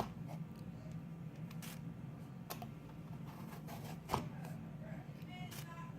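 Vegetable peeler scraping the skin off an apple in short, irregular strokes, with a sharper click about four seconds in, over a steady low hum.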